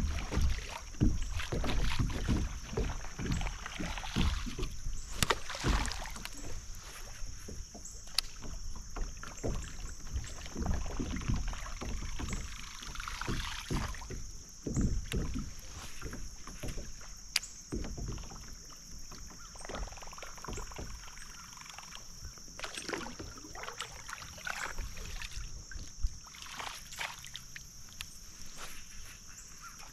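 Kayak on a creek: paddle strokes splashing in the water and irregular knocks and bumps against the hull.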